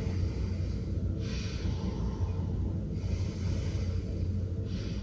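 A man's slow, audible breaths, two long drawn breaths about three and a half seconds apart, the first about a second in and the next near the end, over a steady low hum.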